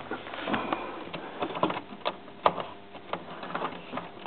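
Model train running on the layout track: a faint steady hum with a series of irregular small clicks and clacks.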